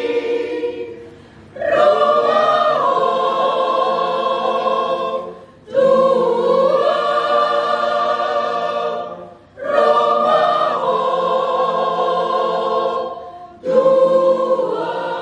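Mixed choir of men and women singing a cappella in sustained phrases, each swelling in and fading away, with short breath gaps between them, four times.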